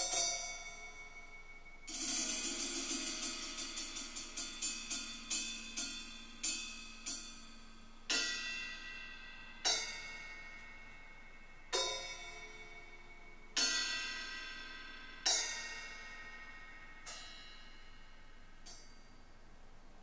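Percussion music played through a pair of Canton Karat 100 three-way closed bookshelf speakers. A quick run of struck notes comes first, then single strikes every couple of seconds, each ringing out and fading. The music dies away near the end.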